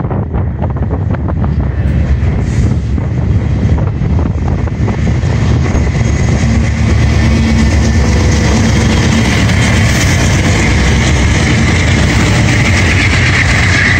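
Diesel-electric freight locomotives, an Illinois Central unit leading, running as they approach and pass close by, louder from about halfway through. They are followed by the rumble of coal hopper cars rolling past, with wheel-on-rail noise building toward the end.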